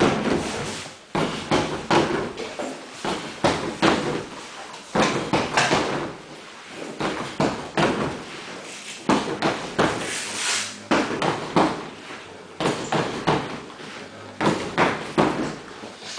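Strikes landing on a free-standing heavy bag in quick, irregular flurries of sharp slaps and thuds, with short pauses between combinations.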